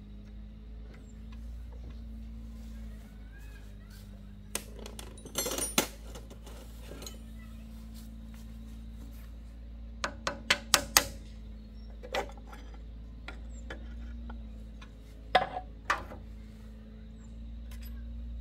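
Metal tools and parts clinking and clanking against each other in scattered bursts, including a quick run of about five sharp clinks near the middle, over a steady low hum.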